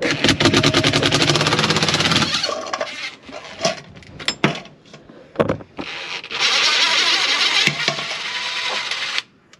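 Tool working on the Allen bolts that hold a boat windlass's top to its base: a fast, even rattle for about two seconds, a few knocks, then a steadier rasping run from about six seconds in that stops abruptly.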